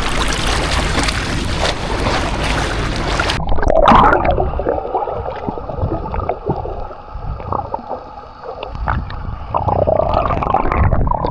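Loud rushing of wind and water. About three and a half seconds in it gives way suddenly to muffled sloshing and gurgling of water close around the microphone, with the high sounds cut away.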